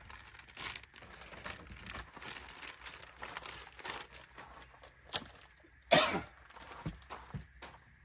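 Footsteps crunching over the ground, irregular light steps, with one louder crunch about six seconds in. A steady high whine runs underneath.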